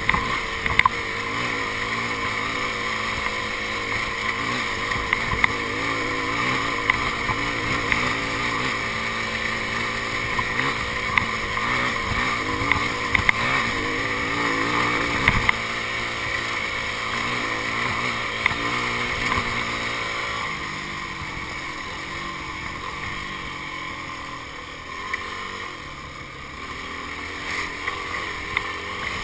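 Yamaha enduro motorcycle's engine running under way, its pitch rising and falling with the throttle, with scattered knocks and rattles from the bike. About two thirds of the way through it eases off and gets quieter.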